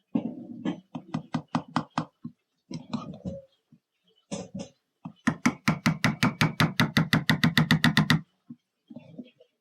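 A spoon knocking rapidly against a pot or pan. First comes a run of about four or five knocks a second, then, about five seconds in, a faster, very even run of about nine knocks a second that stops about three seconds later.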